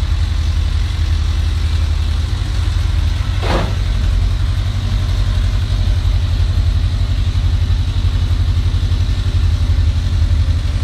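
Honda CB1000 inline-four engine idling on the choke just after a cold start, a steady low pulsing beat that becomes more even about two seconds in. This is the cold-engine idle during which the owner hears a knock that goes away once it warms up. A brief noise cuts in about three and a half seconds in.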